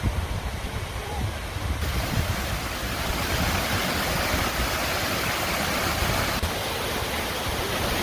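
Rushing water of a moorland stream, a steady hiss that grows fuller and louder about two seconds in, with wind rumbling on the microphone underneath.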